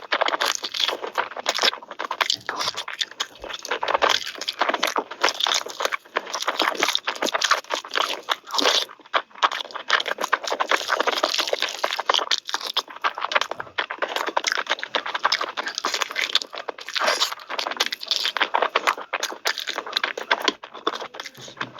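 A person chewing and crunching food close to the microphone in a continuous run of crackly bites and chews.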